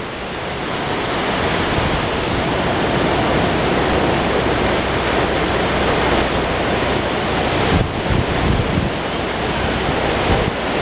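Ocean surf breaking and washing up the beach, a steady rush that swells over the first couple of seconds, with wind rumbling and buffeting on the microphone in a few short thumps near the end.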